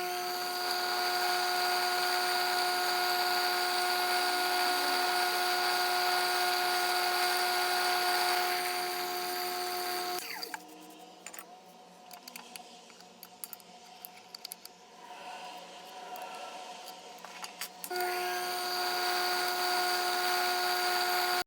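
Sherline mini mill's spindle motor running with a steady whine while drilling small tap-drill holes. It stops about ten seconds in, leaving a few light clicks and knocks, then starts again near the end.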